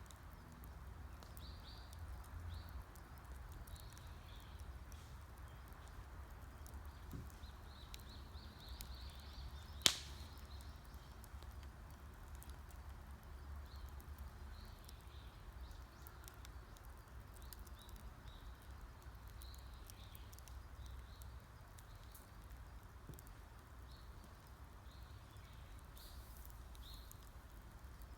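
Wood campfire crackling, with scattered small pops and one sharp, loud pop about ten seconds in. Small birds chirp faintly in short calls throughout.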